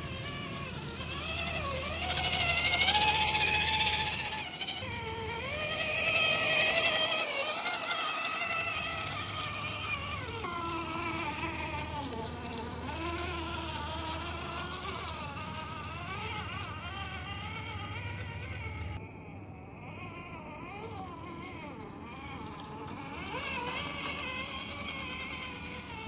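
Axial SCX10 II Deadbolt RC crawler's electric motor and geartrain whining as it crawls up a rocky trail. The pitch rises and falls with the throttle and is loudest in short pushes a few seconds in.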